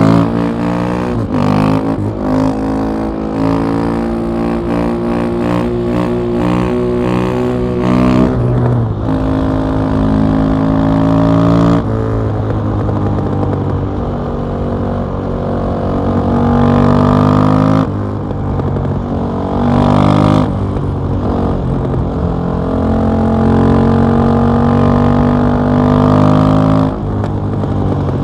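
KTM 660 SMC's single-cylinder engine through an Akrapovic exhaust, under way and being worked hard. Its pitch climbs and drops several times as the throttle is opened and closed and the gears change.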